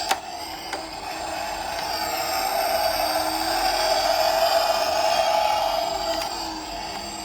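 Toy minicar wheels rolling along a slope track: a steady rolling rumble that grows louder toward the middle and fades again, with a few sharp clicks.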